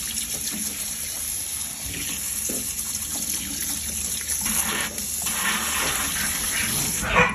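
Kitchen faucet running, its stream splashing steadily onto the floor of a stainless steel sink and onto paper boats, with a brief louder splash near the end.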